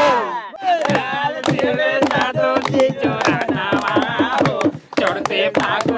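A group of men singing a rustic Holi folk song together, kept in time by hand claps and dholak drum strokes at about four beats a second. The singing and beating break off for a moment about five seconds in, then pick up again.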